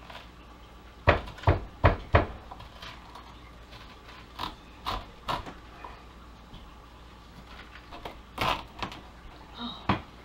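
Knife knocking into a whole spaghetti squash's hard rind as it is cut on a cutting board: four sharp knocks in quick succession about a second in, softer knocks a few seconds later, and two more near the end.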